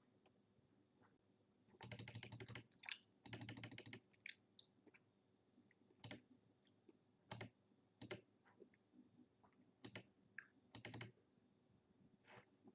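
Faint clicking of computer controls while paging through an on-screen document: short bursts of rapid clicks about two and three and a half seconds in and again near eleven seconds, with single clicks scattered between.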